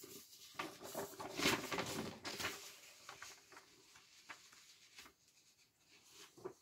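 Paper rustling and handling as a sheet is moved, a cluster of rustles and light knocks over the first two and a half seconds, then a few faint clicks.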